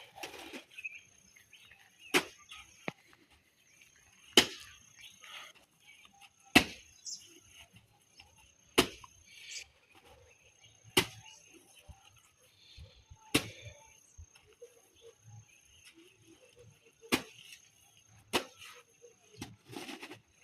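Sharp single clicks or taps about every two seconds, with one longer pause, over a steady high-pitched insect trill like a cricket's.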